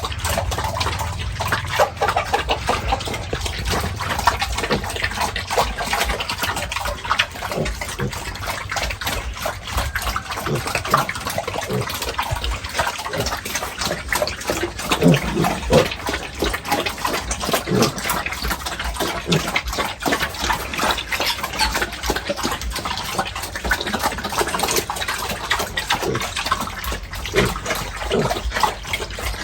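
Pigs in a pen amid continuous splashing and sloshing water, with a few short grunts.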